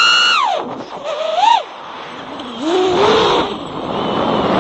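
FPV quadcopter's motors and propellers whining, the pitch swinging with the throttle: falling at first, a short rise and drop about a second and a half in, then climbing again from about three seconds. A rush of air noise builds under it in the second half.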